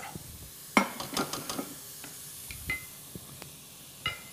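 Spoons and dishes clinking and knocking on a kitchen counter: a quick run of clatter, then two separate clinks that ring briefly.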